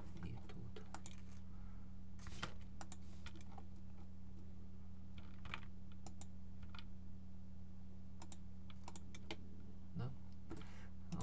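Irregular clicks and taps of a computer keyboard and mouse, over a steady low electrical hum.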